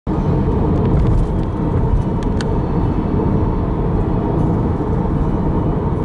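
Car on the road, with a steady low road-and-engine rumble and a few light clicks in the first two and a half seconds.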